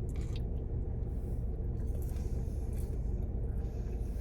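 Steady low rumble of a car engine idling, heard inside the cabin, with a few faint, soft chewing sounds over it.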